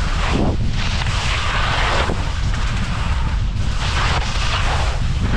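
Wind buffeting the skier's action camera microphone in a steady low rumble, with skis hissing and scraping through soft late-season snow in swells about once a second, one per turn.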